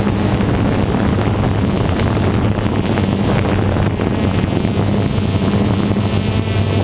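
Camera drone's motors and propellers humming steadily, with wind rushing over the on-board microphone.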